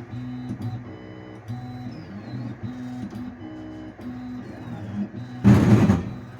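Flsun QQ-S Pro delta 3D printer's stepper motors humming through a series of moves, their pitch changing in steps every half second or so, with faint high whining slides. About five and a half seconds in there is a loud noisy burst lasting about half a second.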